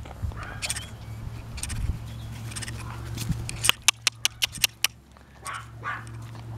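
Yorkshire terrier puppies yipping as they play: scattered short, high yips, then a quick run of about six sharp yaps a little past the middle.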